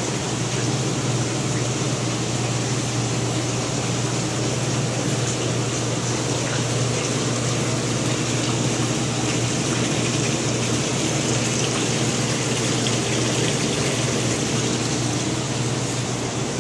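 Saltwater aquarium pumps and circulating water: a steady low hum under an even, unbroken rush of moving water.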